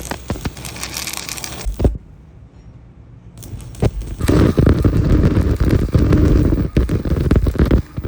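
Loud crackling, clattering metalwork noise in two bursts: the first stops about two seconds in, and the second starts about three and a half seconds in and keeps going.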